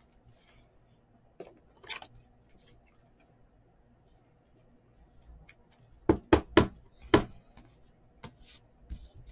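Trading cards and clear plastic card holders being handled on a table: light scattered clicks, then a quick run of four sharp knocks about six to seven seconds in.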